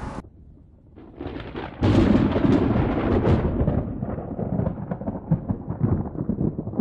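Thunderstorm sound: a loud thunder crash with a low rumble about two seconds in, followed by steady crackling rain.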